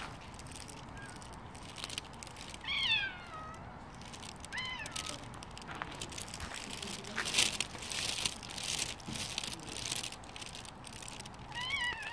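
A white stray cat meowing three times: a long falling meow about three seconds in, a short one soon after, and a rising-then-falling one near the end. Scattered short crunching noises come between the calls.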